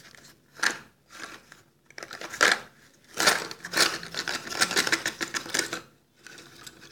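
A cardboard box of Eagle brand slate pencils being handled, with a few separate taps and rustles, then the slate pencils tipped out and clattering against each other onto a carpet: a dense run of clicks starting about three seconds in and lasting over two seconds.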